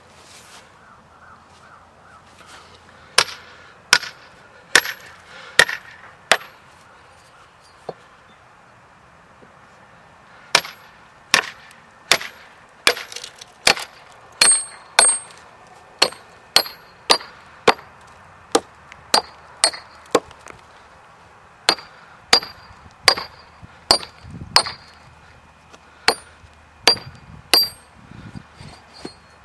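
Iron splitting wedge hammered into a maple log: sharp strikes with a brief ring. A run of five blows comes about three seconds in, then after a pause steady blows a little over one a second, splitting the log into billets.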